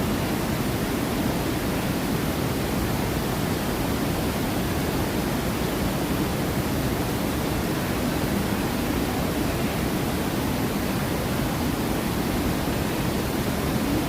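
Steady, unbroken rush of falling and flowing water, like a waterfall or rapids.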